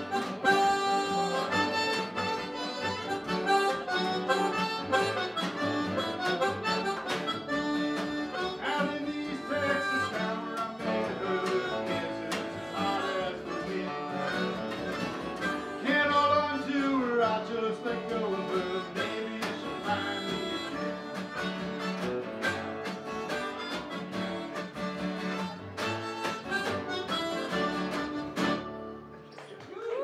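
Small acoustic band playing an instrumental passage: harmonica over acoustic guitars and upright double bass. The tune ends about a second before the close.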